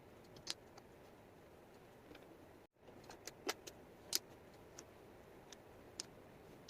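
Wooden jigsaw puzzle pieces clicking and tapping as they are handled and set down, a handful of sharp separate clicks over a faint steady hiss. The sound cuts out completely for a moment a little before three seconds in.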